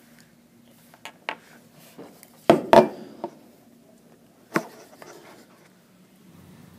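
Handling noise of small plastic parts on a hard tabletop: a scattering of short clicks and knocks as a plastic straw is fitted onto an air duster nozzle, the loudest a double knock about two and a half seconds in.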